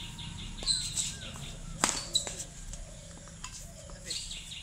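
Sharp strikes of a badminton racket hitting the shuttlecock during a rally, the loudest one near two seconds in. Birds chirp throughout, with a quick run of short repeated chirps at the start and again near the end.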